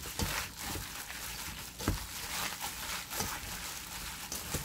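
A hand in a plastic glove kneads and tosses seasoned dried radish strips in a stainless steel bowl, making irregular wet squishing and crinkling strokes, several a second, with a sharper knock about two seconds in.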